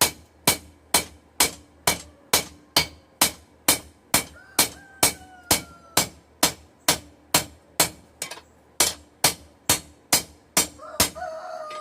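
Hand hammer striking hot steel on an anvil, forging in the bevels of a gladius blade: steady ringing blows about two a second, stopping near the end.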